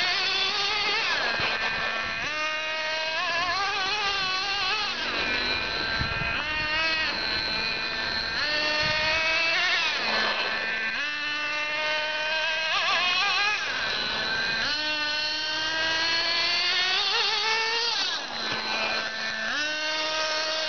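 Small engine of a radio-controlled car, revved in several throttle bursts. Each burst is a buzzing whine that rises in pitch, and between runs it drops back to a steady idle.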